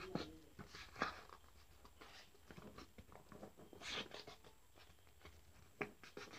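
Faint, scattered rustles and soft crinkles of a sheet of coloured craft paper being handled and folded by hand.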